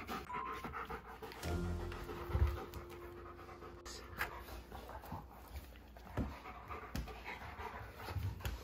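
German shepherds panting hard during rough play, over background music.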